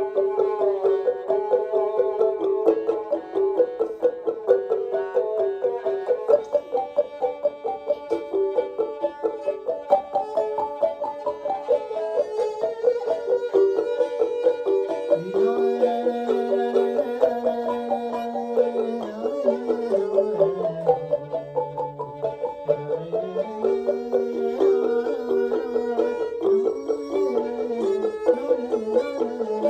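Live acoustic instrumental music: quick, repeated, bright struck or plucked notes form a looping melody. About halfway in, a lower held tone joins and slides down and back up.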